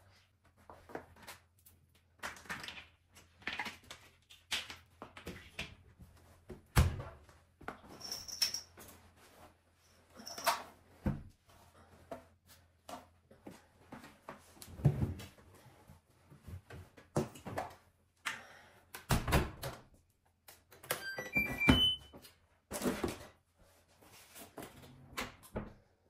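Laundry being handled at an LG front-loading washing machine: a string of irregular knocks, thunks and rustles from the drum door, drawer and cloth. About three quarters of the way through, a short run of rising electronic beeps sounds from the machine's control panel.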